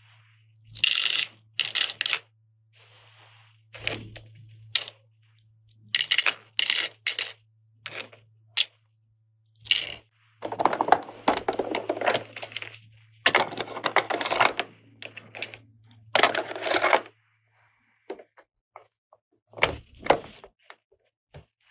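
Small plastic toy kitchen parts clicking, knocking and scraping as they are handled and fitted together, with a low steady hum underneath that stops near the end.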